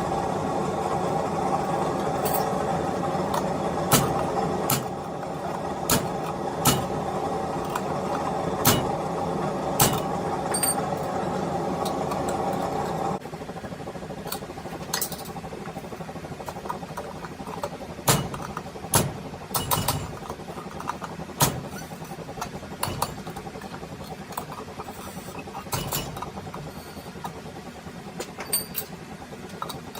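A steady machine hum in a blacksmith's shop, with irregular sharp metallic clinks and taps of tools and stock; the hum drops noticeably about 13 seconds in.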